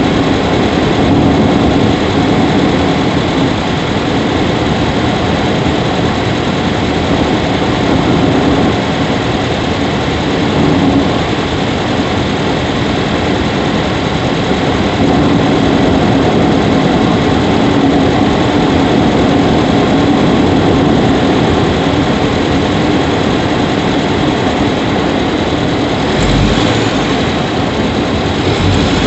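Subaru Levorg 1.6GT-S's 1.6-litre turbocharged flat-four engine running steadily, heard from inside the engine bay next to the intake.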